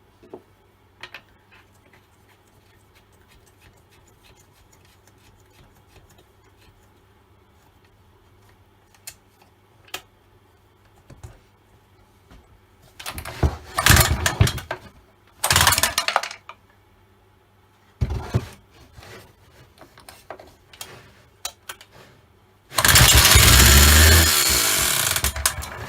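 Old Stihl 08S two-stroke chainsaw being pull-started with pre-mix squirted down the bore: three short bursts as the starter cord is pulled and the engine turns over, then near the end it catches and runs loudly for about three seconds. It runs a bit noisy and clanky, which the owner wonders is the top end rattling.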